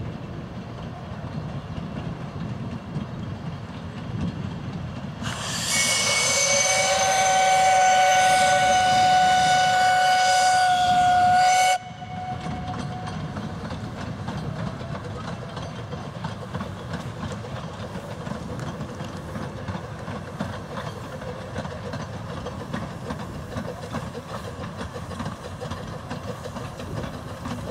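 Quarry Hunslet 0-4-0 saddle-tank steam locomotive working a passenger train, its running noise steady throughout. About five seconds in, its steam whistle sounds one long, loud blast of several seconds, cutting off suddenly.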